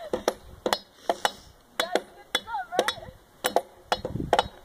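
An axe and a hatchet chopping into a dead fallen log: sharp wooden chops, about a dozen of them, two or three a second in an uneven rhythm as two people hack at once.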